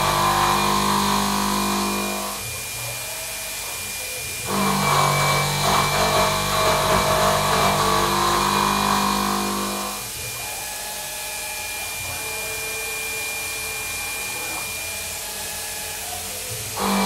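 Precision Matthews PM30-MV CNC mill spindle running a 3/4-inch shear hog through a facing cut in aluminium round stock, with the air blast on. The loud cutting noise goes in stretches: for about the first two seconds, again from about four and a half to ten seconds, and once more at the very end. Between these stretches only the quieter steady whine of the spindle and axis motors is heard as the cutter is moved between passes and between the two parts.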